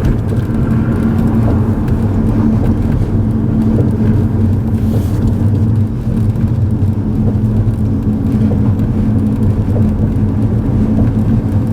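A car driving along at a steady speed: an even low hum of engine and road noise.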